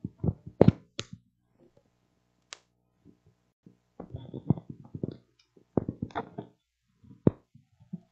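Handheld microphone being handled and passed over at a lectern: scattered knocks and thumps, in clusters near the start and through the middle, with one sharp knock near the end.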